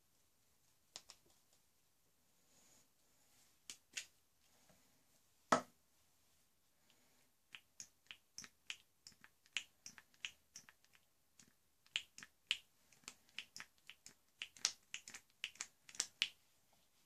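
A run of sharp, light clicks and taps, like small objects being handled. A few scattered ones come first, with the loudest about five and a half seconds in. From about halfway they come in an irregular run of two or three a second.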